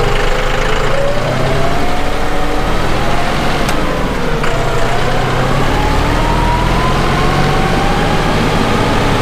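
A vehicle engine running steadily, with a whine that slowly falls and then climbs in pitch as it drives. Two light clicks come about four seconds in.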